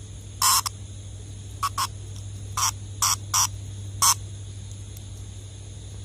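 A cicada held between a person's fingers gives a run of short, loud buzzes, some in quick pairs, about eight in all, then stops about four seconds in. These are the protest squawks a cicada makes when it is grabbed.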